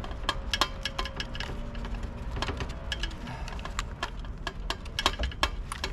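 Irregular small clicks and rattles of plastic wiring plugs and wires being worked loose by hand inside a tankless water heater.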